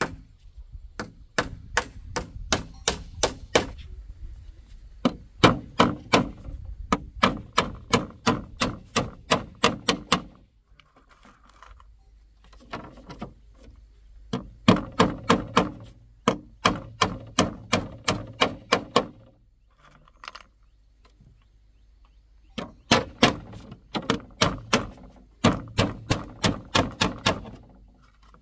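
Repeated blows of a tool on wood, about three a second, in runs of several seconds with short pauses between them.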